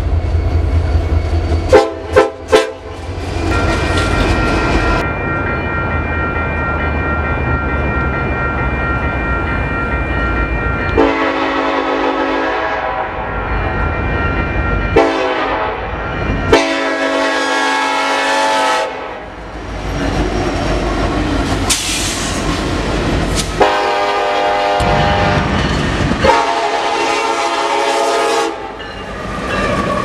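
Nathan K5LLA five-chime air horns on Union Pacific diesel locomotives sounding a series of blasts, some long and some short, over the rumble of the passing engines and wheels on the rail. A few sharp clicks come about two seconds in.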